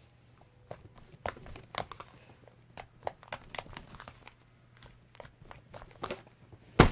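Slime with lotion worked into it being squished and stretched by hand, giving irregular small clicks and crackly pops, with one louder pop near the end.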